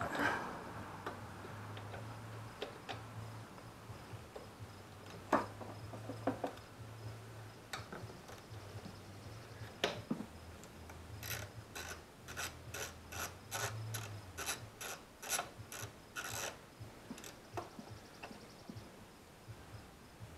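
Hand ratchet clicking as a bolt is turned: a few scattered clicks, then a run of about a dozen even strokes, roughly two a second, that stops a few seconds before the end.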